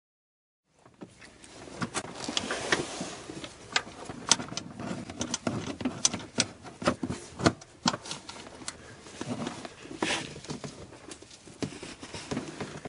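Hands fitting a serpentine belt in an engine bay with the engine off: irregular clicks, taps and knocks of the belt and tools against pulleys and parts, over steady rustling and rubbing. It starts about a second in.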